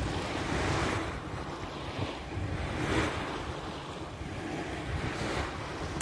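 Sea waves washing in, with wind; the rush rises and falls in slow surges a second or two apart.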